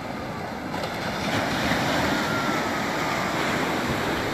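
Sea waves breaking and washing up onto a sandy beach in a steady hiss of surf, which swells a little about a second in.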